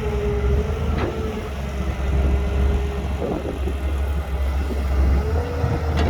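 Heavy diesel engine of construction machinery running steadily, a low rumble with a wavering whine over it, and a sharp click about a second in and again near the end.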